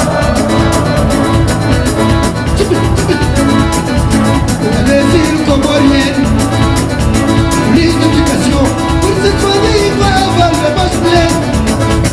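Live band music with a steady, fast beat and a wandering melodic lead line over it.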